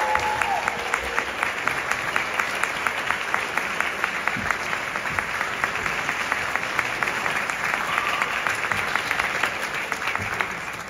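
Audience applauding, a dense run of overlapping claps that dies away near the end.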